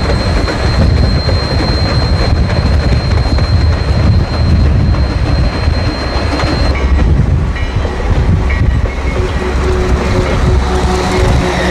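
Sierra Railway No. 3 steam train rolling past, with wheels clicking over the rail joints over a loud, steady low rumble. The sound changes abruptly about seven seconds in.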